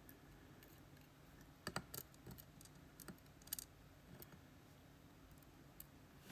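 Faint, scattered small metallic clicks and taps of a disassembled wafer lock's core and wafers being handled.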